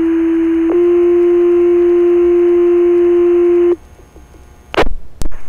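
Two-tone sequential paging alert over fire dispatch radio: a steady low tone for about a second, then a slightly higher tone held about three seconds that stops abruptly. These are the alert tones that set off the firefighters' pagers ahead of a dispatch page. Two short radio clicks follow near the end.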